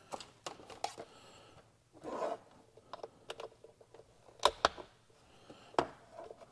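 Handling noise from a Depstech endoscope and its camera cable: scattered small plastic clicks and taps as the cable's connector is pushed into the display unit's port, with the cord rustling as it is stretched out. The sharpest clicks come about four and a half seconds in and again near the end.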